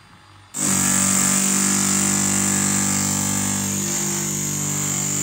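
Corded electric rotary hammer drilling into the metal casing of an ATM, starting abruptly about half a second in, running steadily for about five seconds, then stopping.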